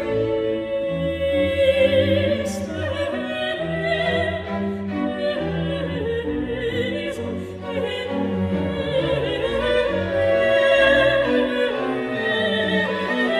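Orchestral classical music with bowed strings and an operatic voice holding long, wavering notes.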